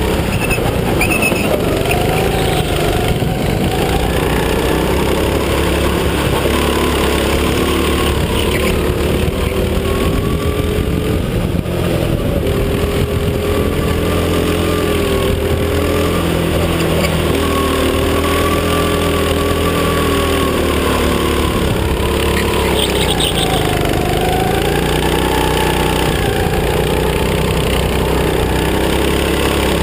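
Go-kart engine running under load, heard from on board. Its pitch rises and falls repeatedly as the throttle opens and closes through the corners, with a deep drop and recovery about two-thirds of the way through.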